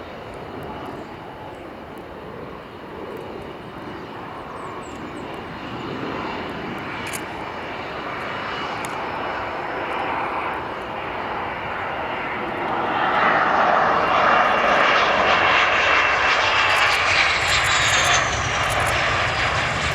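Panavia Tornado jet's twin turbofan engines running as the jet approaches, growing steadily louder and loudest near the end, where a high whine falls in pitch.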